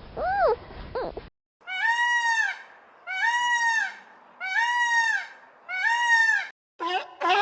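Animal calls: a few short whining cries, then after a cut four long, evenly spaced arched cries, then quicker rising calls near the end.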